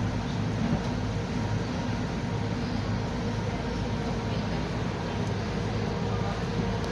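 Motor boat's engine running steadily: a constant low hum with an even hiss over it, no change in speed.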